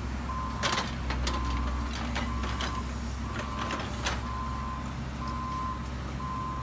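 A vehicle's reversing alarm beeps about once a second over the steady low rumble of a running engine, with a few sharp clicks in the first few seconds.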